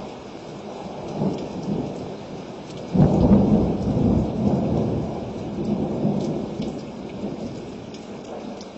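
Steady rain with small drop ticks, and a roll of thunder that breaks in suddenly about three seconds in and rumbles away slowly over the next few seconds.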